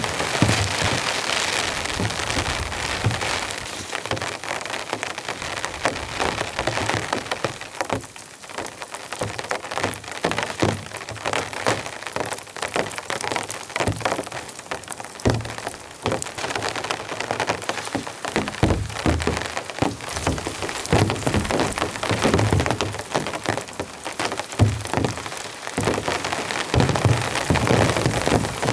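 Heavy rain falling steadily, a dense patter of drops hitting the surrounding surfaces, with a few dull low thumps scattered through it.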